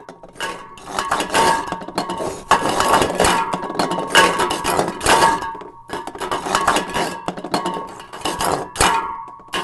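Crockery, glasses and cutlery on a serving cart rattling and clinking as the cart is rolled over stones, in uneven bursts with a few short breaks.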